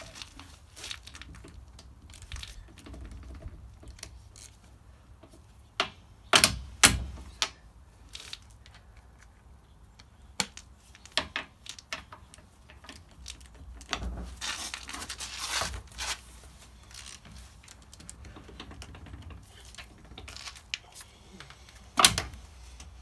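Scattered clicks and a few sharp knocks of tools and parts being handled at a truck wheel, with a stretch of scraping rustle about fifteen seconds in and the loudest knocks about six seconds in and near the end.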